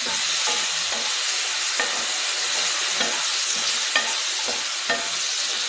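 Chunks of onion, carrot, capsicum and potato sizzling in oil in a nonstick frying pan over low heat, while a wooden spatula stirs them, scraping and knocking against the pan about once a second.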